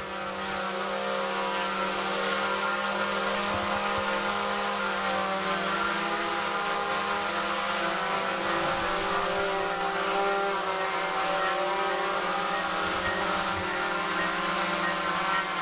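DJI Mavic Pro quadcopter's propellers and motors whirring steadily, a hum made of several steady tones.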